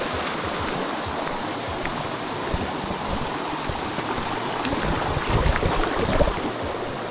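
Rushing water of a mountain stream flowing over rocks, a steady noise that swells briefly about five to six seconds in.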